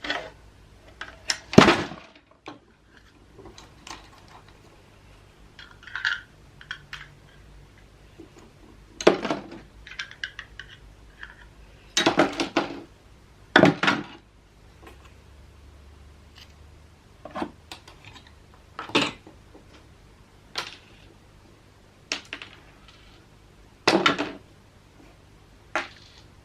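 Hard electronic parts and casing pieces being handled and set down on a work surface: about a dozen separate clacks and clinks at irregular intervals.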